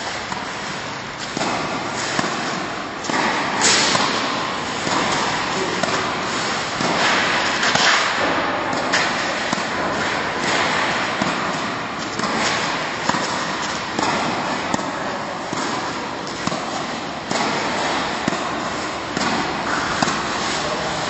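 Tennis rackets striking a ball back and forth in a volley-to-volley rally: sharp hits about once a second, over a steady rushing background noise.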